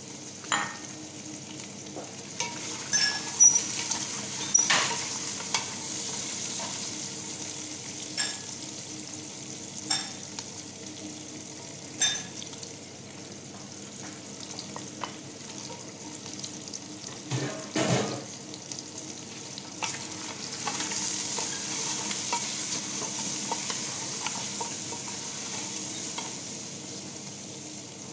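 Meat sizzling as it fries in a stainless steel pressure cooker pot, stirred with a wooden spatula that knocks against the pot every second or two. Food is scraped off a plate into the pot with the spatula, with a busier clatter of stirring a little past halfway, after which the sizzle grows louder.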